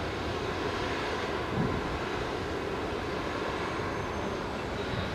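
Steady low outdoor rumble with no clear single event.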